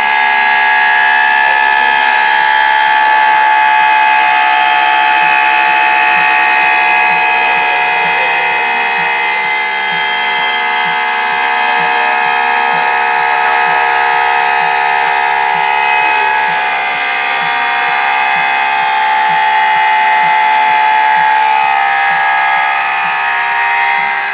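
Homemade CNC machine running: a steady, loud whine made of several tones together, which eases off at the very end.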